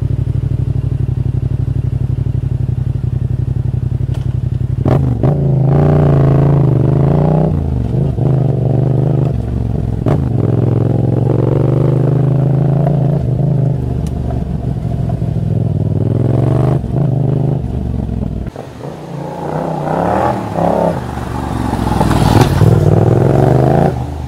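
Yamaha XSR700's 689 cc liquid-cooled parallel-twin with a 270° crankshaft, heard from the rider's seat while riding. The revs rise and fall several times, drop off for a moment a little after halfway, then climb again.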